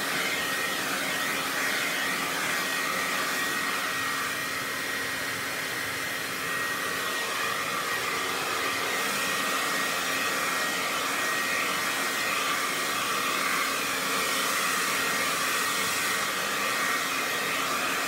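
Handheld hair dryer running steadily, its air stream pushing wet acrylic paint across a canvas. A thin steady whine sits over the rush of air.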